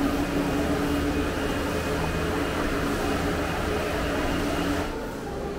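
Steady mechanical hum with a rushing noise, easing off about five seconds in.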